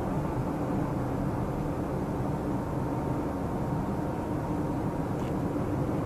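Suzuki Dzire AGS cruising on a highway, heard from inside the cabin: a steady hum of engine and road noise.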